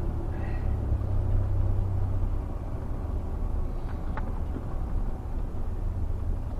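Steady low rumble of a 2012 Chevrolet conversion van's engine and tyres on pavement while driving, heard from inside the cabin. It eases off slightly about two and a half seconds in.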